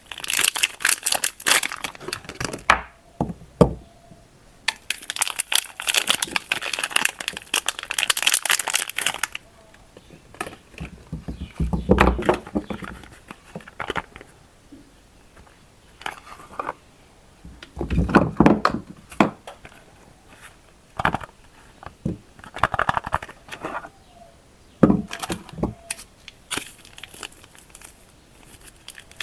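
Soap wrappers crinkling and tearing as bars of soap are unpacked by hand, in two long bursts of dense crackling, then quieter separate rustles and soft knocks as the bars are handled.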